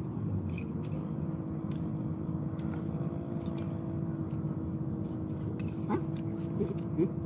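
A steady motor hum, like an engine running at a constant speed, with a few light clicks of spoons against bowls.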